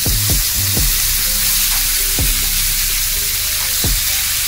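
Strips of raw beef frying in hot oil in a wok: a steady sizzle as the meat goes in and is spread and turned with tongs.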